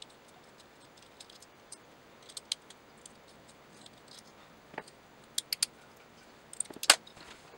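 Small metal clicks and ticks as retaining pins are pulled out of an Arca rail adapter and handled by hand: scattered light ticks, a quick cluster of clicks about five and a half seconds in, and one sharp, louder click near the end.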